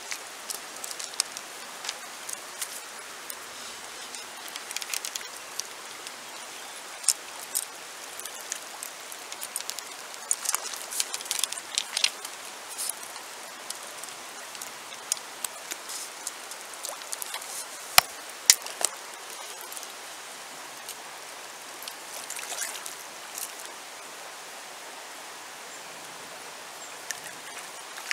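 Shallow river running over a stony bed, a steady rushing hiss flecked with many small splashes and trickling ticks. Two sharp clicks half a second apart stand out about two-thirds of the way through.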